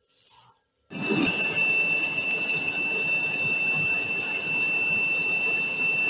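Gas burner of a homemade forge built from an old gas cylinder, running with a steady rushing noise and a single high whistling tone, starting suddenly about a second in.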